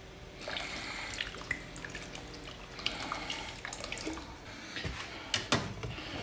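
Cooking wine poured from a bottle into a stainless pot of simmering water and chicken pieces, with liquid splashing and bubbling. A few sharp knocks near the end as a metal ladle goes into the pot.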